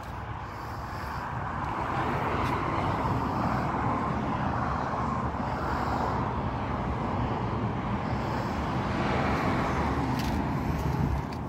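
Steady engine noise of a motor vehicle, growing louder over the first two seconds and then holding steady.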